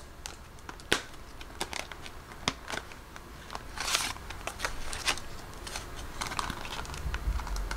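Hands handling paper cash: scattered light clicks and taps with brief rustles of paper, the longest rustle about four seconds in.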